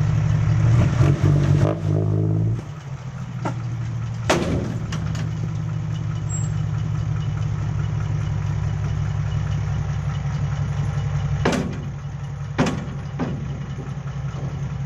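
Six-wheel dump truck's diesel engine running with a very loud exhaust, held at raised revs while the hydraulic bed tips the load, then dropping to a steady idle about two and a half seconds in. A few sharp knocks sound over the idle, around four seconds in and twice near the end.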